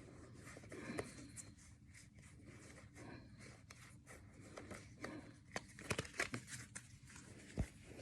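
Faint rustling and light clicks of trading cards being handled and flipped through, with a quick run of sharper clicks a little past halfway and a single louder tap near the end.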